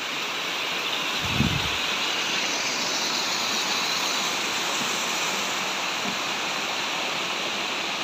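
Water cascading down a small waterfall over rocks and rushing through a shallow rocky channel: a steady, even rush.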